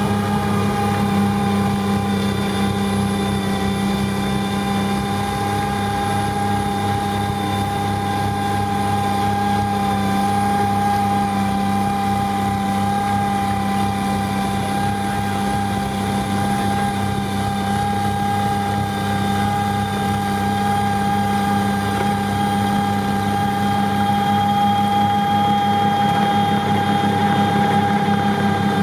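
CAT wheel loader with a Contant snowblower attachment running steadily, its augers chewing into a snowbank and throwing snow: a heavy engine drone with a steady high whine over it, growing a little louder near the end.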